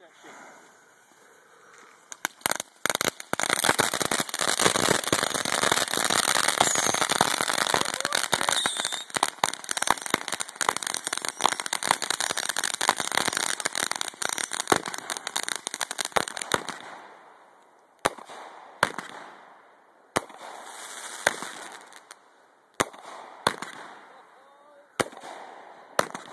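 Consumer ground fireworks: after a quiet fizz, a spark fountain sets off dense crackling over a steady hiss for about fourteen seconds. The crackling then gives way to a slower string of single sharp bangs, roughly one a second, with a fainter hiss between them.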